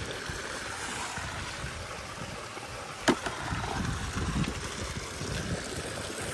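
Water pouring from an inlet pipe into a concrete trout-pond tank: a steady splashing hiss. A single sharp click comes about three seconds in.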